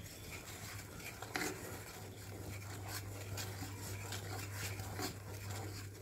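Wooden spatula stirring thin jaggery syrup with spice powder in a nonstick pan, with soft scraping and light taps against the pan, over a faint steady low hum.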